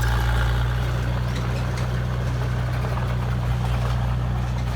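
Heavy construction machine's diesel engine running steadily with a constant low drone.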